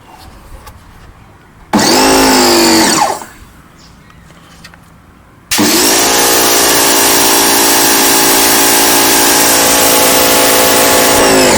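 Pressure washer motor and pump starting up with a rising pitch, running for about a second and stopping. It starts again a couple of seconds later, runs steadily for about six seconds, and winds down near the end.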